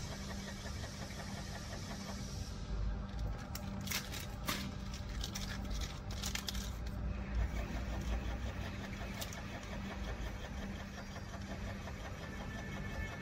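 Screw-auger powder filling machine running with a steady motor hum. From about three to seven seconds in, a run of sharp crackles and clicks as a plastic bag is handled under the filling nozzle.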